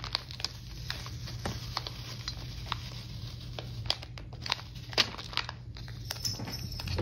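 Plastic packaging sleeve crinkling as hands open it and pull at its edge, with many small, irregular crackles over a steady low hum.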